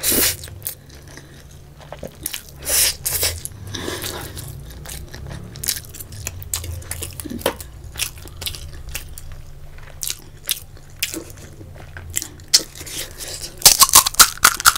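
Close-miked eating sounds: a slurp of noodles at the start, then wet chewing of Maggi noodles and macaroni with small lip smacks. Near the end comes a run of loud crisp crackles as a hollow panipuri shell is cracked open.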